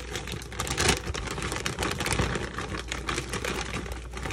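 Rapid, irregular clicking and clattering of things being handled in a kitchen, with a louder knock about a second in, over a steady low hum.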